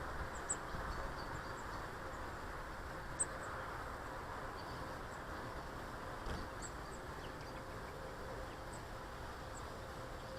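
Steady background rumble with a faint steady hum. Scattered short, faint high chirps of small garden birds come through it, with one brief click about three seconds in.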